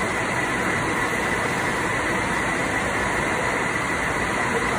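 Steady machinery running: an even drone with a faint, steady high whine.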